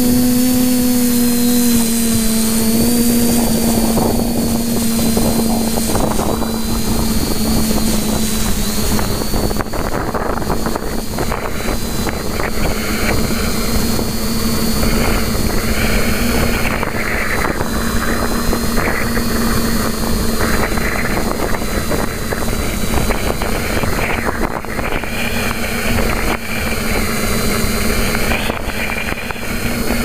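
TBS Discovery quadcopter's electric motors and propellers running in flight, heard up close from the onboard camera as a steady, slightly wavering drone. Rough wind noise on the microphone thickens a few seconds in.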